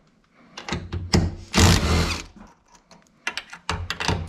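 Cordless impact driver with a socket extension spinning 10 mm nuts off a truck's side-mirror mounting studs, running in several short bursts, the longest a little over a second, with small clicks between.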